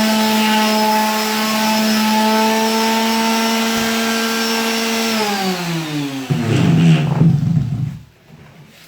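Electric sander running steadily on a canvas with a constant hum. It is then switched off and winds down in pitch, ending in a brief loud clatter before it falls quiet.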